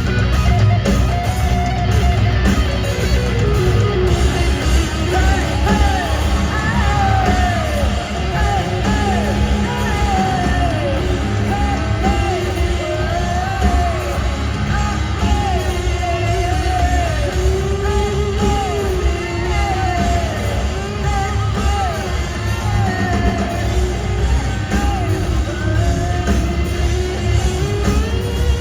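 Live rock band playing loudly in a large hall: heavy bass and drums under guitars, with a singing voice carrying a wavering melodic line over the top.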